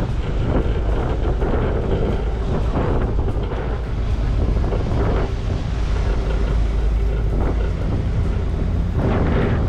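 Wind buffeting the microphone over the steady low rumble of a river tourist boat under way.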